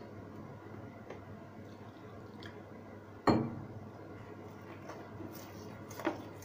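Metal spoon stirring a besan-and-water batter in a stainless-steel bowl, with soft wet stirring and a sharp ringing clink of spoon against bowl about three seconds in, and a smaller clink near the end.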